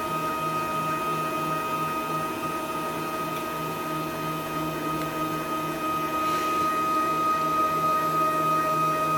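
Stepper motors of a small desktop CNC router jogging its axis forward, a steady whine of fixed pitches.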